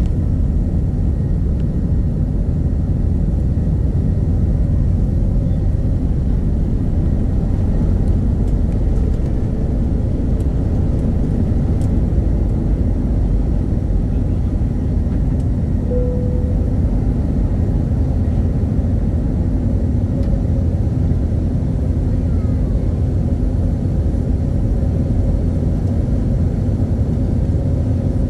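Airbus A320 cabin noise heard from a window seat: a steady low rumble of the jet's engines and airflow. A brief thin tone rises out of it a little past halfway.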